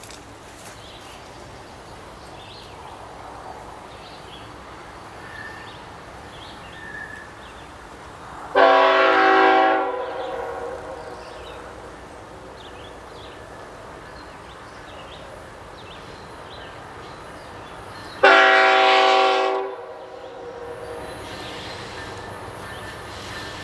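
Air horn of CN ET44AC locomotive 3023 on an approaching train, sounding two long blasts about ten seconds apart, each a chord of several tones lasting about a second and a half. Faint steady background noise between the blasts.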